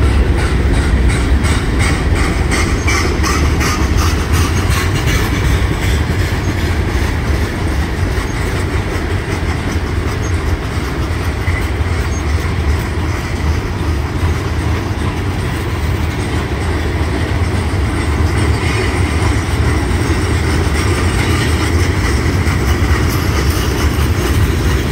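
Freight train of tank cars and boxcars rolling past close by: a steady rumble of steel wheels on rail, with regular clacks as the wheels cross the rail joints.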